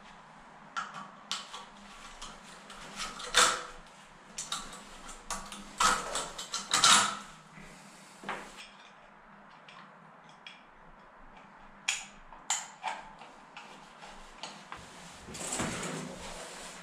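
Hand tools working at an oil burner's electrical connection box: scattered small metallic clicks and knocks, the loudest about three and a half and seven seconds in. A longer rustling scrape comes near the end as a cable or hose is pulled away.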